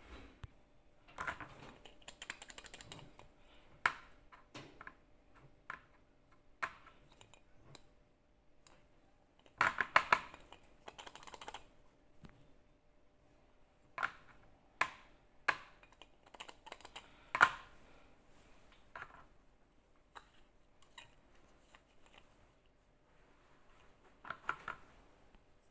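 Irregular small clicks, knocks and short rattles of hard parts being handled, with louder clusters about ten, fifteen and seventeen seconds in.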